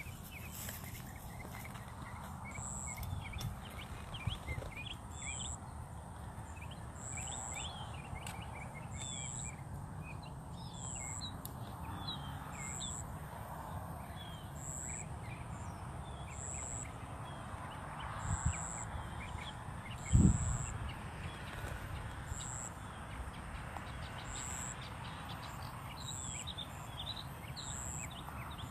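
Birds chirping in short high calls, with a thin high note repeating about every second and a half, over a steady low outdoor rumble. A single loud thump about twenty seconds in.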